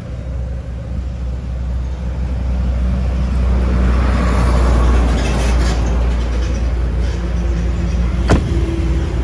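Road traffic: a steady low rumble, with a passing vehicle's noise swelling through the middle and easing off. A single sharp click comes near the end.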